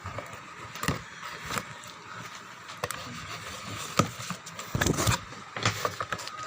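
Packaging being handled while unboxing: scattered knocks and clicks, with a burst of rustling about five seconds in.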